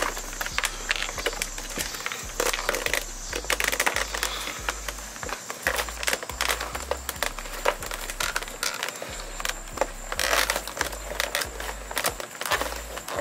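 Plastic fog-light bezel with an LED daytime-running strip being pushed and worked into a 2013 Ford Fusion's front bumper: irregular clicks and crackles of the plastic tabs rubbing and popping into their clips.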